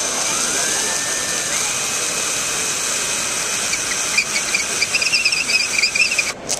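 Power drill running with a high whine that rises in pitch as it speeds up in the first couple of seconds. From about four seconds in there is an uneven chattering as the bit bores into the wall, and the drill stops suddenly just before the end.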